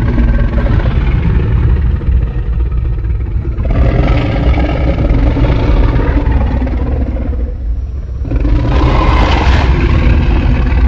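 Made-up giant-monster sound effect for the kaiju Titanus Yamato no Orochi: a constant deep rumble with two long, rough calls over it, the first about four seconds in and the second starting near the end.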